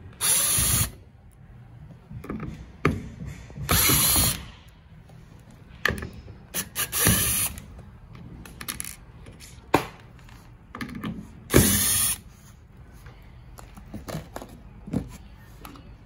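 Electric drill used as a screwdriver, spinning in about four short bursts as it backs out the small screws of a wall clock's plastic movement cover. Small clicks and knocks from handling the screws and cover come between the bursts.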